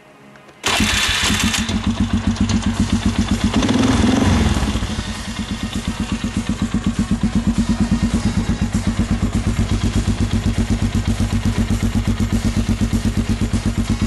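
Polaris Sportsman 500 ATV's single-cylinder four-stroke engine through an aftermarket Muzzy exhaust, starting less than a second in. It rises briefly around four seconds in, then settles into a steady, evenly pulsing idle.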